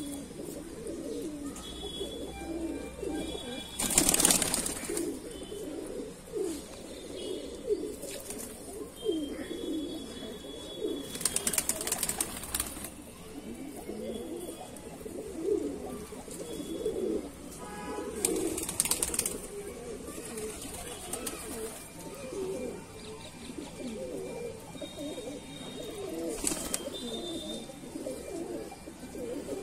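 A flock of domestic pigeons cooing continuously, many overlapping low, wavering coos. A few short noisy flurries break in, the loudest about four seconds in.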